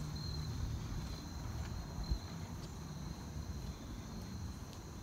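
Crickets trilling steadily at a high pitch, over a low rumble.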